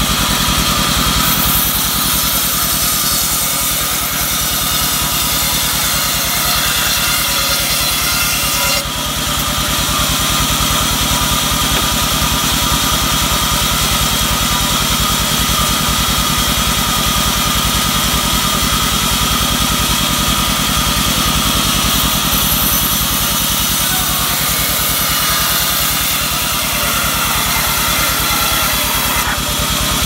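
Band sawmill running steadily, its vertical blade ripping albasia wood lengthwise, a continuous machine drone with a high hiss. The level dips briefly about nine seconds in.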